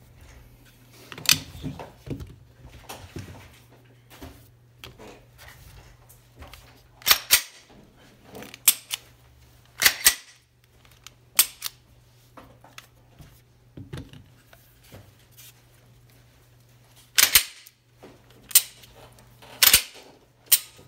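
Tara TM-9 and CZ P-10 F polymer-frame 9 mm pistols being worked by hand: slides racked back and snapping forward, giving a string of sharp metallic clacks a few seconds apart. A low steady hum runs underneath.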